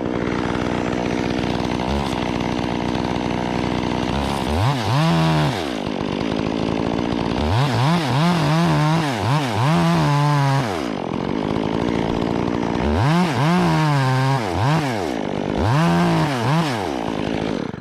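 Chainsaw running and cutting into a rigged log section, its engine pitch swinging up and down again and again in three runs of cutting under load. It stops suddenly near the end.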